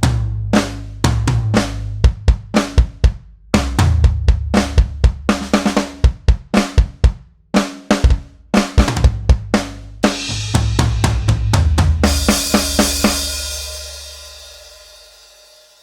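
Sampled drum kit from Steinberg's Groove Agent 5 virtual drummer playing a pattern of kick, snare and cymbals, with quicker runs of hits. About twelve seconds in it ends on a cymbal crash that rings out and slowly fades away.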